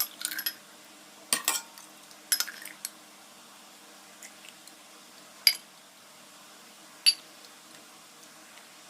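A ladle clinking sharply against a pot and a glass cup several times while chickpeas in their cooking liquid are scooped out.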